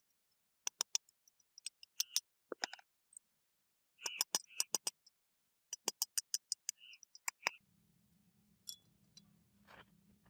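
A hammer tapping a steel pin into a gun's metal frame on a steel block, giving sharp metallic taps in quick clusters. The taps stop about three-quarters of the way through, and a faint low hum follows.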